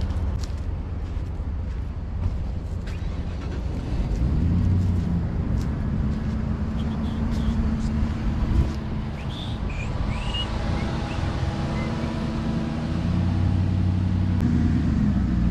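Truck engine idling steadily, with wind rumbling on the microphone.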